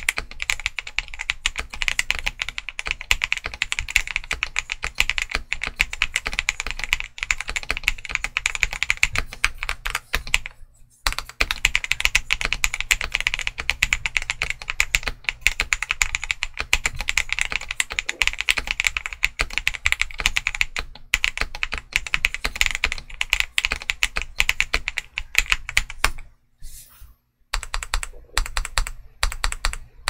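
Continuous fast typing on a Zoom75 mechanical keyboard with Domikey Deep Sea switches and Drop + Mito XDA Canvas keycaps, the keystrokes blending into a dense clatter. It stops briefly about ten and a half seconds in, and in the last few seconds turns to slower, separate keystrokes with short gaps.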